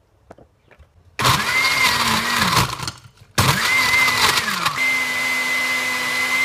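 Countertop blender motor starting about a second in, run in two short pulses with a brief stop between, then held at a steady speed. It is blending ice cubes into a matcha, milk, butter and coconut oil mixture.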